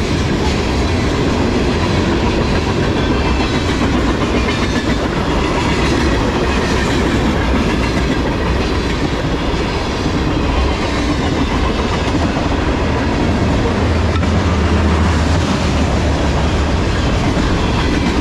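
A freight train's tank cars and covered hoppers rolling past at close range: a steady, loud rumble and rattle of steel wheels on the rails.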